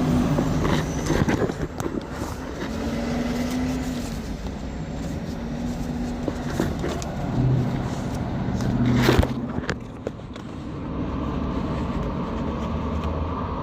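Road traffic going by close at hand, a steady vehicle hum with passing engine tones, and a brief loud sharp noise about nine seconds in.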